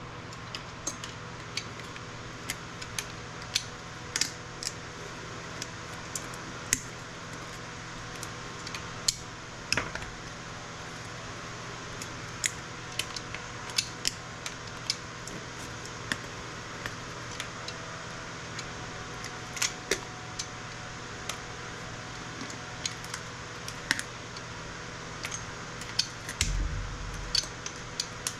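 Aluminum electrolytic capacitors being snapped and pulled off a circuit board with a metal hand tool: scattered sharp clicks and snaps, a few a second, over a steady hum. A short low thud comes near the end.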